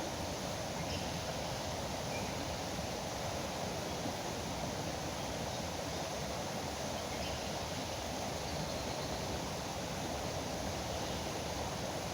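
Steady rushing of foaming river water, an even noise at a constant level, with a few faint short bird chirps above it.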